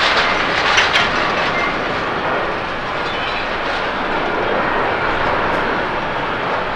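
Steady rushing jet noise from an All Nippon Airways Boeing 767-300(ER) rolling down the runway after landing, a little louder in the first second and easing slightly after.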